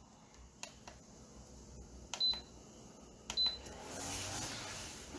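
Instant Pot control panel being set: a few soft button clicks and two short high beeps as the yogurt program is keyed in for 8 hours. A steady rushing noise comes up near the end.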